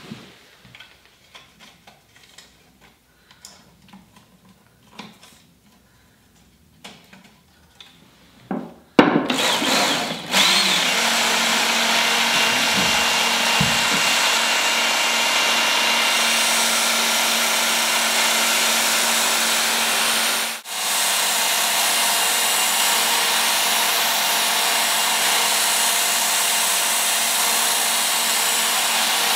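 A few light handling clicks, then about nine seconds in a Work Sharp Ken Onion Edition electric belt sharpener starts up and runs steadily, its fine-grit belt whirring as a knife edge is ground on it. The motor noise cuts out for a moment about twenty seconds in and then resumes.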